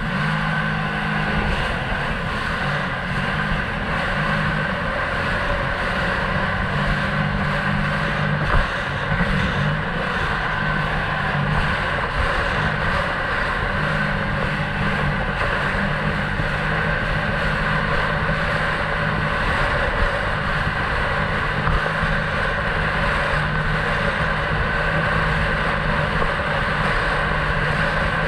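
Sea-Doo jet ski engine running steadily at cruising speed, around 50 km/h, with an even pitch throughout. A single brief thump comes about eight seconds in.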